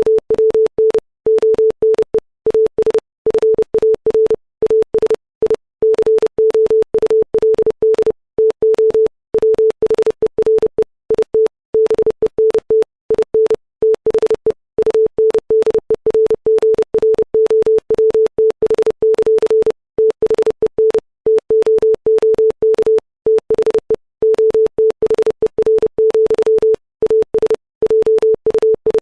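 Computer-generated Morse code: a 440 Hz sine-wave tone keyed on and off in fast dots and dashes at 30 words per minute, with longer gaps between letters and words. Each element starts and stops with a faint click.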